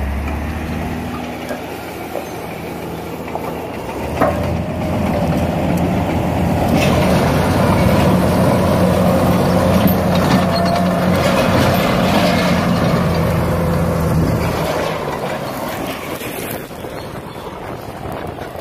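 Heavy diesel engines of a loaded log truck and the crawler bulldozer holding it back downhill, growing louder as the bulldozer passes close and then fading away. A sharp knock about four seconds in.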